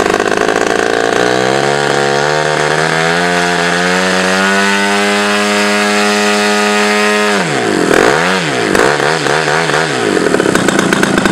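Aircraft engine on a test stand run up toward full throttle: its pitch climbs steadily for about six seconds and holds high, then drops suddenly and wavers down and up several times.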